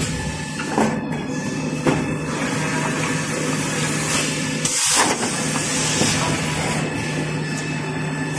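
A toilet paper and kitchen towel rewinding line running: a steady machine hum with hiss and rattle, a few sharp clicks in the first two seconds, and a brief louder hiss about four and a half seconds in.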